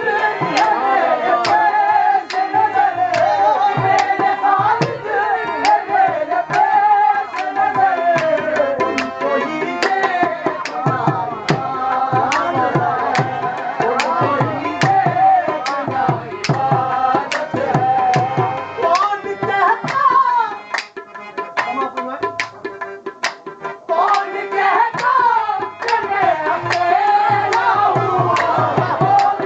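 Qawwali: men's voices singing over harmonium, with a tabla playing a steady rhythm. About two-thirds of the way through the singing drops back for a few seconds, leaving mainly the tabla, then the voices return.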